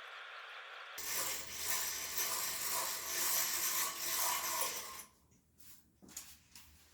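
A loud, noisy mechanical sound that starts suddenly about a second in and cuts off about four seconds later, followed by a few faint clicks and knocks.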